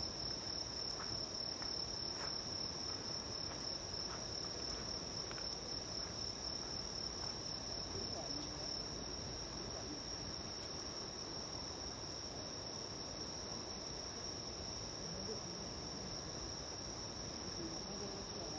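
Insects trilling in one continuous high-pitched tone, with a second, pulsing insect call that stops about halfway through. Faint pops from a small wood campfire.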